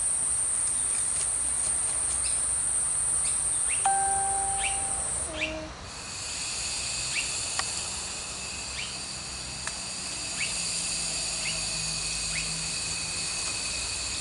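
Insect chorus: a steady high-pitched drone that changes about six seconds in to several steady tones, some higher and some lower. Short bird chirps repeat every second or so, and a brief whistled note comes about four seconds in.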